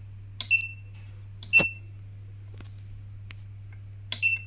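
Control-panel buttons on a G-Matronix R30+ autorefractometer being pressed, each press giving a click and a short high electronic beep. There are three beeps: about half a second in, a second later (the loudest, with a sharp click), and near the end. A steady low hum runs underneath.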